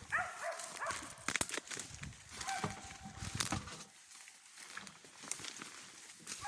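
A hunting laika barking at a capercaillie hen in a tree. There are short barks at the start, about two and a half seconds in, and again at the end, with a few sharp cracks in between.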